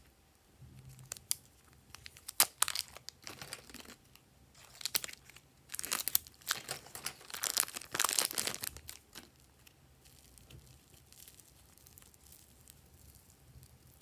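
Crinkly clear plastic wrapper being peeled off a block of soft red clay: a run of irregular crackles starting about two seconds in, loudest in the middle, dying away about nine seconds in.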